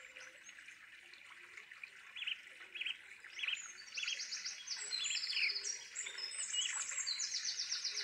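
Several birds calling over a steady high hiss: short chirps from about two seconds in, then fast, high trilled phrases from about four seconds in, growing louder.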